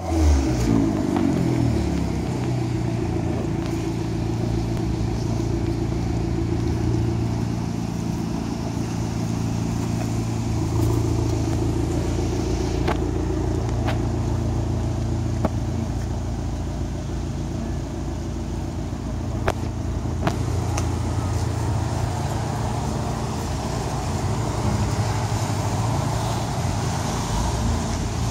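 Fiat 500 Abarth cabriolet's turbocharged four-cylinder exhaust: a rev at the very start falls back within about two seconds, then the engine idles steadily. A few short sharp clicks come through the middle.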